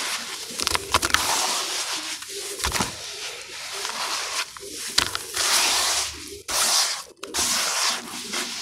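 Hands squeezing and crumbling wet ash mixed with water in a plastic tub: gritty, crunchy squishing that comes in uneven surges, with small crackles.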